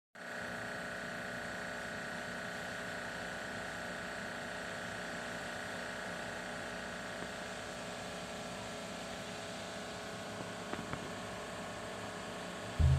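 A steady mechanical hum with a hiss, several held tones over it. A few faint clicks come about ten and a half seconds in.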